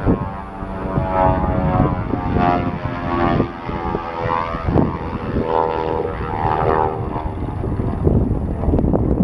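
Twin Beech 18's two radial piston engines and propellers droning as the plane flies its display, the engine note rising and falling in pitch several times.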